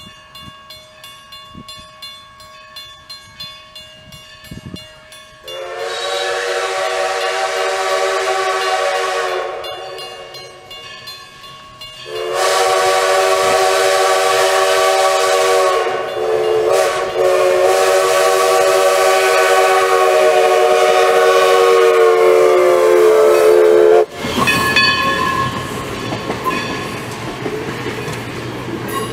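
A grade-crossing bell rings, then a steam locomotive's chime whistle, several notes sounding together, blows long blasts for the crossing: one of about four seconds, then a longer one with a brief dip partway through. Near the end, passenger coaches roll past with steel wheels clicking over the rail joints.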